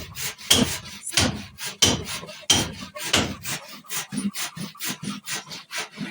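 Handsaw cutting timber in regular back-and-forth strokes, about one and a half strokes a second at first, then shorter, quicker strokes from about halfway through.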